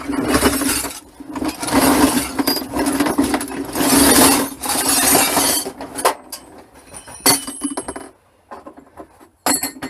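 Loose scrap metal bits clattering and clinking as a sack of them is tipped out, in about three long pours, then scattered clinks as the pieces settle and are sorted.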